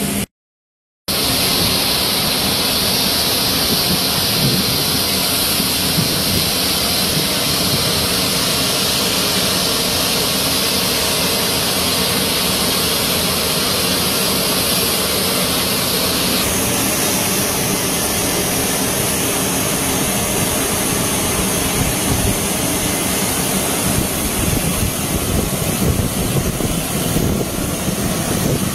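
Steady, loud jet-aircraft roar with a high whine, from a C-17 Globemaster III transport standing on the apron. After a brief cut-out at the start, the roar runs on evenly, and the pitch of the whine shifts about halfway through.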